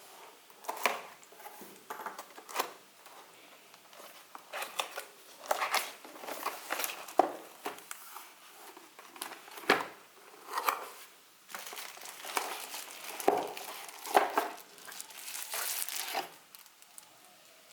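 Keyboard packaging being handled and unwrapped: crinkling and rustling in irregular bursts, with a few sharper knocks.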